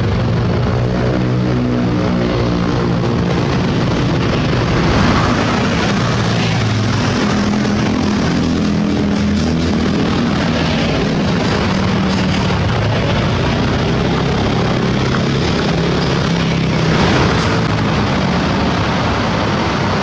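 Road traffic passing close by: the diesel engines of a bus and heavy trucks hauling excavators, mixed with motorcycles. A steady drone whose engine tones shift in pitch as the vehicles move, a little louder around five seconds in and again near the end.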